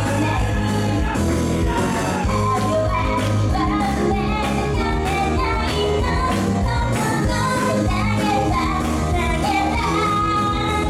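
A young woman singing a pop song live into a handheld microphone, amplified over loud backing music with bass and a steady drum beat.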